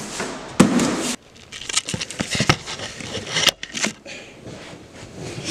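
Handling noise: a loud burst of rustling noise about half a second in, then a run of crinkling, crackling and sharp knocks as things are moved about.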